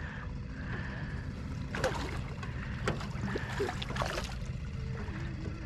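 A hooked freshwater drum (sheephead) thrashing at the surface, throwing several sharp splashes about two to four seconds in, over a steady low rumble.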